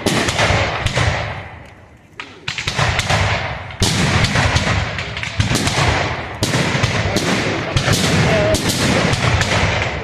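Fireworks display: shells bursting in quick succession, each bang trailing off in an echo, with a short lull about two seconds in and then a dense barrage of bangs.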